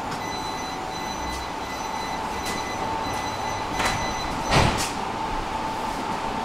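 Tram interior noise while riding: a steady running rumble with a constant electrical hum. There are two sharp knocks, about four and four and a half seconds in, and the second is the louder with a low thud.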